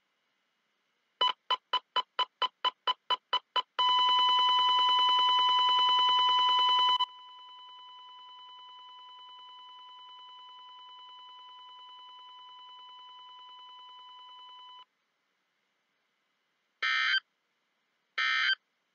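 Electronic alert beeper of a weather-radio test sounding about eleven rapid short beeps, then a continuous beep tone. The tone drops much quieter about seven seconds in and cuts off about fifteen seconds in. Near the end come two short bursts of a harsher, more buzzing tone.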